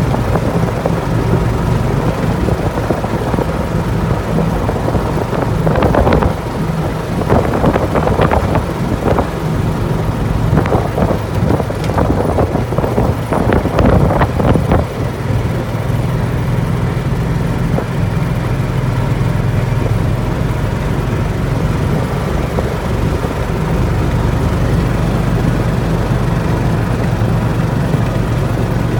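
A slowly moving vehicle's steady low running drone with road noise, heard from on board. A stretch of knocks and rattles comes in the middle.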